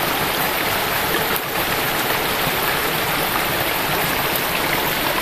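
Running stream water, a steady even rush.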